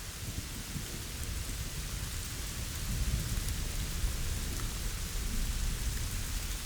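Steady rain falling, an even hiss with low thunder rumbling beneath it that swells about halfway through.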